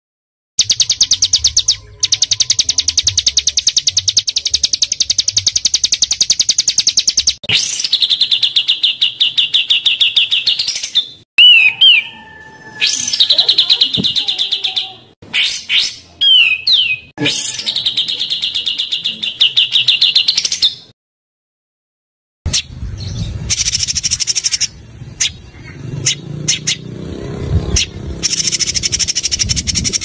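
A small songbird on a bird-tutor recording sings long, very rapid, high-pitched trills in runs several seconds long, each cut off sharply. Short chirps and slurred whistles come between the runs near the middle, and a brief full silence falls about two-thirds through. A low rumble lies under the last part.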